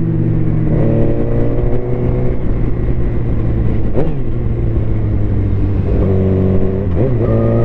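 Suzuki GSX-R750 inline-four engine running under way as the motorcycle is ridden. Its note shifts quickly about four seconds in and again near the end, over a low wind rumble.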